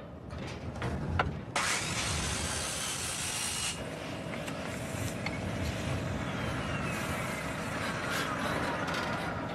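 A sudden loud hiss about a second and a half in, cut off about two seconds later, followed by a steady mechanical drone with a whine that slowly falls in pitch.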